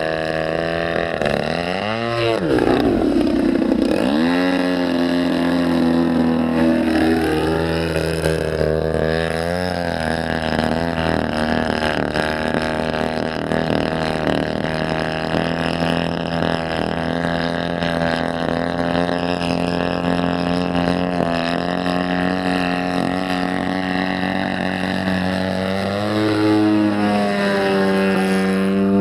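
Petrol engine of a 120cc-size radio-controlled Yak 54 aerobatic plane running in flight. Its pitch swings up and down through the manoeuvres in the first few seconds and again a few seconds later, holds steady through the middle, and climbs again near the end.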